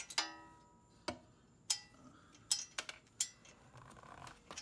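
Irregular sharp metallic clicks and clinks of a wrench and loosened bolt hardware at a motorcycle's rear shock mount, the first one ringing briefly like struck metal.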